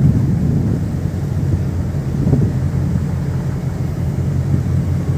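Steady low rumble of an old ferry's diesel engines while the boat is under way and turning away from the terminal.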